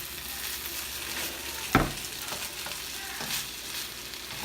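Food frying in a pan with a steady sizzle, with a sharp knock a little under two seconds in and a few lighter clicks later on.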